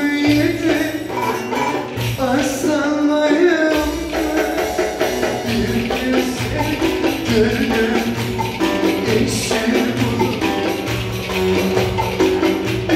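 Ankara folk dance tune (oyun havası) played with a melody line over a steady beat, with a jingling tambourine in the percussion.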